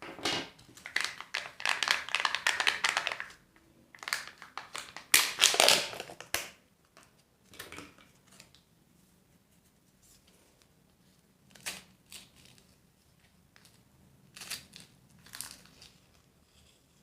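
Packaging wrapper crinkling and tearing as a surprise egg or candy is unwrapped by hand. Two long bursts of rustling in the first six seconds, then scattered shorter crinkles and clicks.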